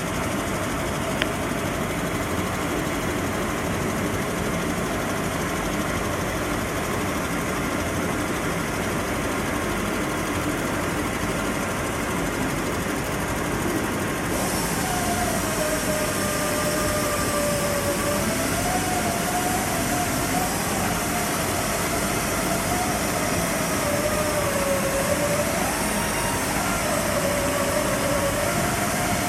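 A machine tool runs steadily while facing the mating face of an exhaust manifold. About halfway through, a brighter hiss sets in together with a wavering tone that drifts up and down in pitch, as the cut goes on.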